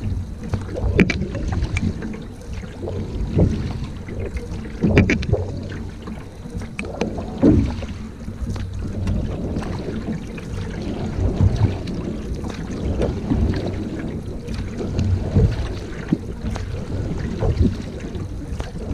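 Single-bladed canoe paddle strokes pulling through lake water, with water rushing along the hull, in a recurring rhythm. Wind buffets the microphone.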